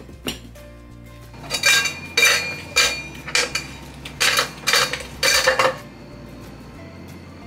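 Ice cubes popped from a plastic ice-cube tray dropping into a tall tumbler: about seven clattering clinks over some four seconds, with background music underneath.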